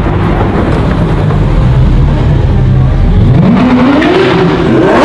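Lamborghini Aventador's V12 engine running at low revs, then revving up with a rising pitch about three seconds in as the car accelerates.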